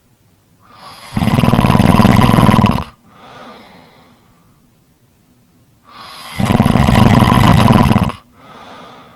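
Snoring: two loud snores about five seconds apart, each lasting about two seconds and followed by a quieter, shorter breath.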